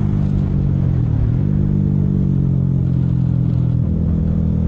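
A 125cc cafe racer motorcycle's engine running as the bike is ridden along at a steady speed, its note shifting in pitch a couple of times.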